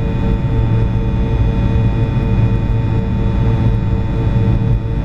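Steady drone of an airliner in flight, heard inside the passenger cabin: engine and airflow noise with a strong low rumble and several steady tones running through it.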